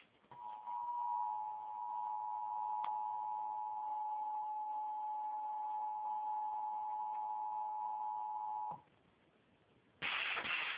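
Emergency Alert System two-tone attention signal: two steady tones sounding together for about eight seconds and then cutting off. It is the alarm that announces a broadcast emergency alert, here a severe thunderstorm warning. After a moment of near silence, a steady hiss starts near the end.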